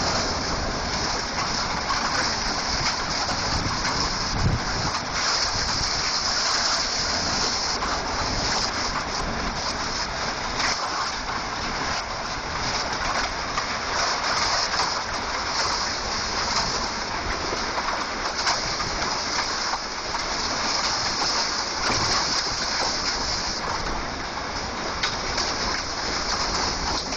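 Heavy rain and hail driven by gale-force wind, pelting down steadily with scattered sharp hits, while gusts buffet the microphone with a low rumble.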